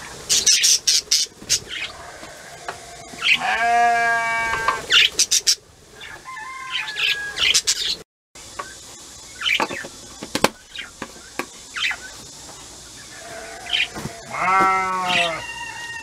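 Budgerigars chirping and chattering among sharp clicks, with two long wavering calls from farm livestock, one a few seconds in and one near the end.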